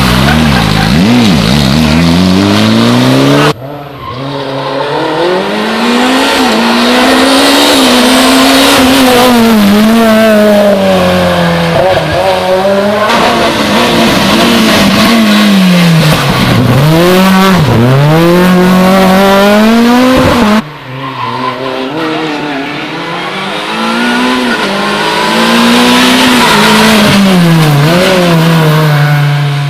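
Rally cars at full throttle on a tarmac stage, engines revving up and dropping back with each gear change as they pass close by. The sound cuts abruptly from one car to the next twice, a few seconds in and about two-thirds of the way through.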